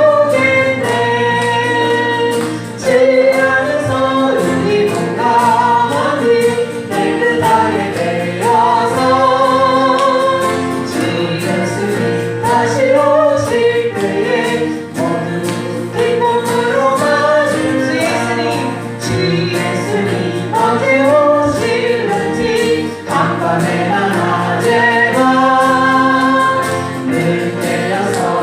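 A congregation and worship team singing a Korean gospel praise song together, with band accompaniment and a steady beat.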